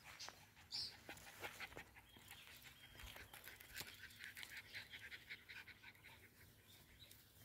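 Faint puppy panting, with soft clicks and rustles as it chews and tugs at a toy in grass.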